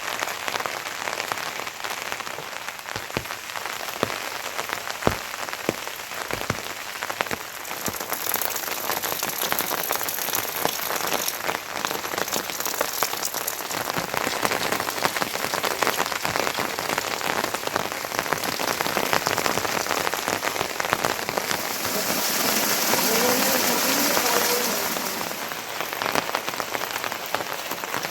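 Heavy rain falling, a dense patter of drops striking surfaces, swelling louder and hissier for a few seconds near the end.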